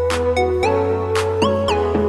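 Background music: an upbeat electronic track with a steady beat, held bass notes and short sliding synth notes.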